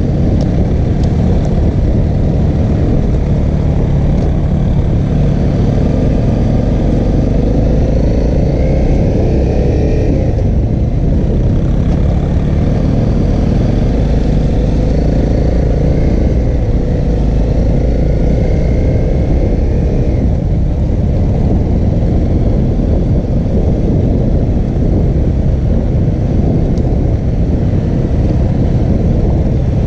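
Honda CRF250L's single-cylinder four-stroke engine running under light throttle on a dirt trail, with steady wind rumble on the helmet-mounted microphone. The engine note rises briefly twice.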